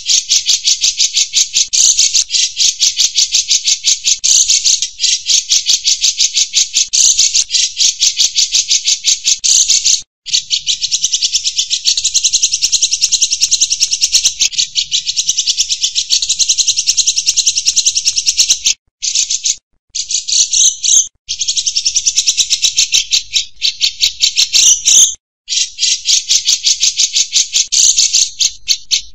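Insect trilling loudly, a fast, even, high-pitched pulsed buzz that keeps going and breaks off briefly a few times.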